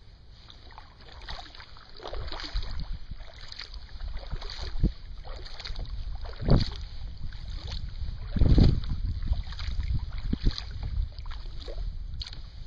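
Wind buffeting the microphone of a camera mounted on a kayak, in irregular gusts, with water sloshing against the kayak's hull. The strongest surges come about six and a half and eight and a half seconds in.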